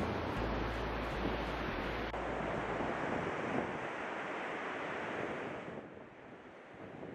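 Sea surf breaking on a sandy beach, with wind on the microphone. It turns quieter about six seconds in.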